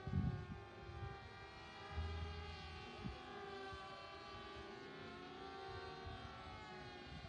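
Several radio-control model planes flying overhead together, their motors and propellers droning at slightly different pitches that slowly waver as they circle.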